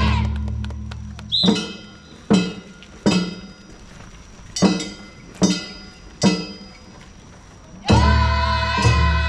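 Live Japanese festival music: a long held pitched note fades away, then about six separate struck strokes ring out one by one, each under a second apart. Near the end the long held note comes back in.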